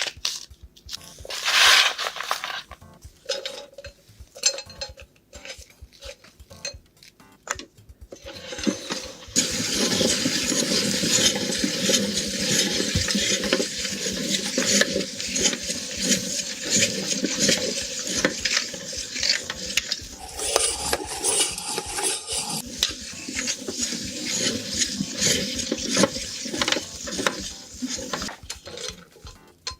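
Meat grinder running with French fries being fed through it: scattered clicks and knocks at first, then from about nine seconds in a dense, continuous metallic clatter and scraping over a steady hum.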